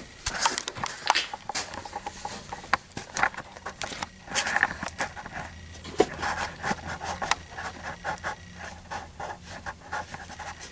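Handling noise on a handheld camcorder's microphone: fabric brushing and scraping against it, with frequent irregular clicks and knocks as the camera is moved and held.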